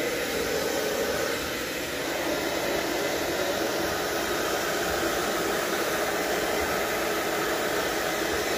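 Handheld hair dryer running steadily, blowing air over a freshly bathed dog's still-wet coat.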